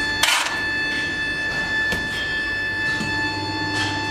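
Steel shovel scraping and moulding sand being tossed onto a foundry moulding flask: one loud scrape and rush of sand about a third of a second in, then a few lighter scrapes. Under it runs a steady hum with a high whine.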